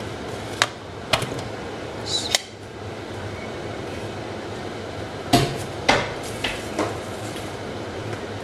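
An aluminium pressure cooker being opened. Its metal lid is twisted free and lifted off with a few clicks and a short scraping ring in the first two and a half seconds. Louder metal-on-metal clanks follow about five and six seconds in, with lighter knocks after.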